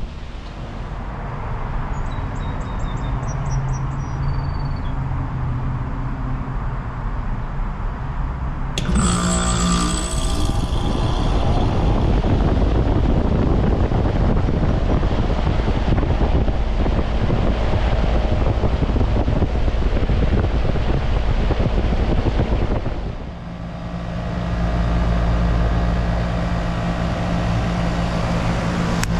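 Goodman GSH13 heat pump outdoor unit starting up: a low steady hum, then about nine seconds in the compressor and fan come on suddenly and run with a loud, steady rush of air and machinery noise. Near the end the sound dips briefly and settles into a steadier hum.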